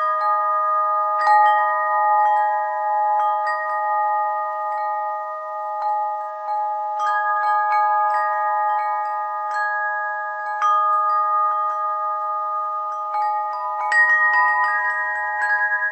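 Tuned bells chiming at random, a handful of fixed pitches struck at irregular moments and ringing on so that they overlap. Strikes come in bunches about a second in, around the middle, and loudest about 14 seconds in.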